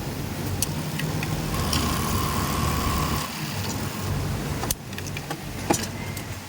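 Industrial sewing machines running: a steady motor hum with scattered sharp clicks, and a held higher whine for about two seconds near the start.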